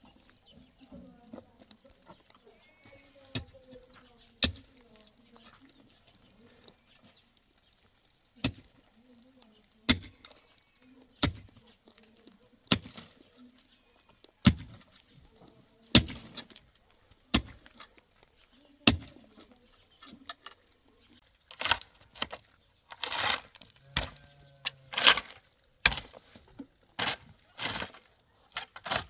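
A series of sharp knocks or impacts, a few seconds apart at first, then coming faster and more clustered in the last third.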